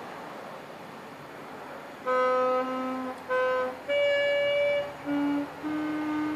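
Saxophone practice, starting about two seconds in: a series of held notes separated by short breath gaps, a higher note in the middle, then several shorter repeated notes near the end.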